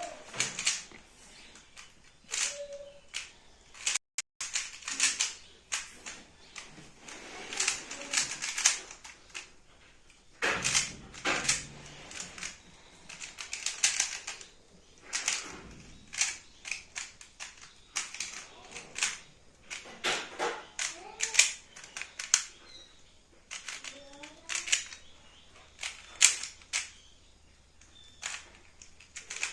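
Rubik's Cube being solved at speed: the plastic layers click and rattle in quick bursts of turns, separated by short pauses.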